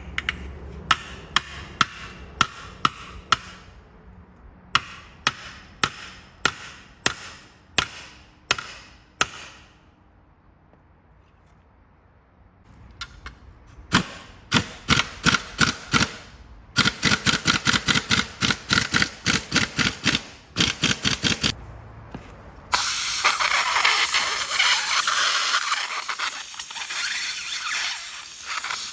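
Hammer blows on bent sheet steel being beaten back into shape, at about one a second with a short pause. A faster run of strikes follows at three or four a second. Near the end comes a stretch of steady harsh noise.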